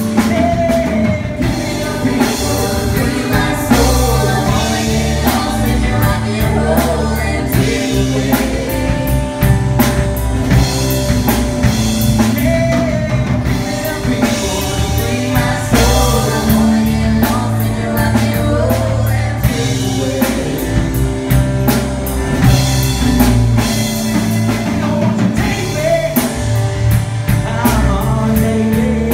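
Live rock band playing a song: singing over drum kit and guitar, with a steady beat.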